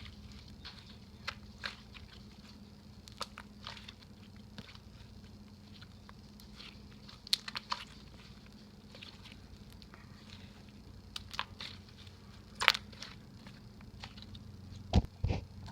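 Slime being squished and worked by hand, giving scattered irregular crackles and small pops. A couple of louder handling thumps come near the end.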